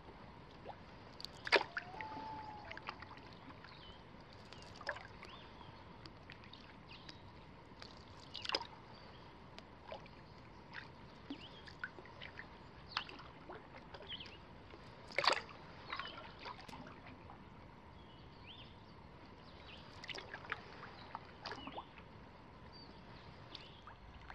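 Canoe paddling on calm lake water: the paddle dipping and pulling through the water with small splashes and drips every few seconds, over a faint steady hiss.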